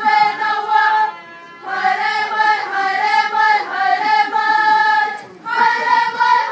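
A group of voices singing a Māori waiata, a welcome song, in long held phrases, with a short pause about a second in and another near the end.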